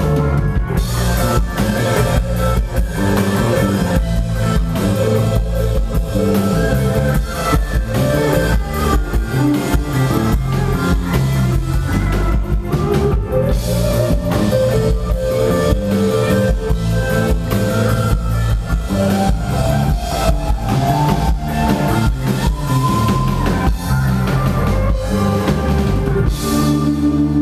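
Live band playing on drum kit, electric guitar and keyboards: a steady drum beat under sustained lead notes that slide up in pitch twice, about halfway through and again near the end.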